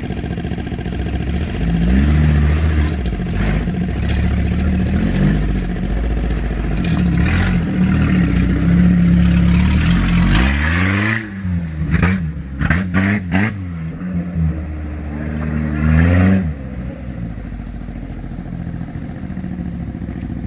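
An off-road vehicle engine running hard, blipped up and down in pitch several times in quick succession, then revved once more and dropped back to a lower, steady running sound about three-quarters of the way in.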